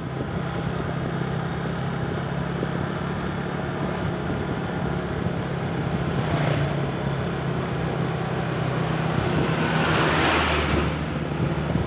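Motorcycle engine running steadily under a ride, with road noise. Another motorcycle passes about six seconds in, and a truck passes close by near the end, the loudest moment.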